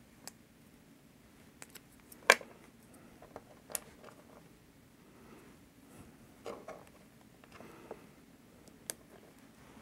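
Scattered small clicks and taps of blue plastic quick-splice (suitcase) connectors being handled and fitted onto copper wire by hand, with one sharper click a little over two seconds in.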